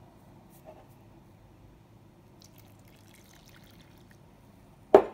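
Water poured from a cup onto flour in a ceramic bowl, a faint trickle, then a sharp knock and a smaller second one near the end.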